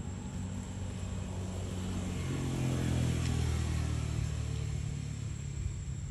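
A motor vehicle's engine passing by, swelling to its loudest about three seconds in and then fading away.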